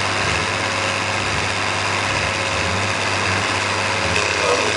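Army 6x6 cargo truck engines idling steadily while the trucks stand hitched for a tug of war, not yet pulling.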